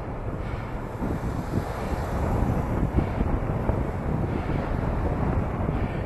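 Wind buffeting the microphone of a 360 camera carried on a moving bicycle, a loud, uneven low rumble and hiss with the street's traffic underneath.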